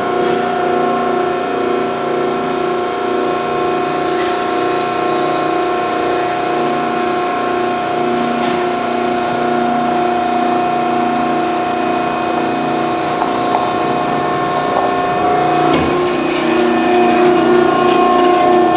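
Vertical baler's hydraulic power pack, driven by a 15-hp three-phase electric motor, running steadily with a humming pump as the ram cycles. About 16 seconds in, the sound changes with a few clicks and then grows slightly louder.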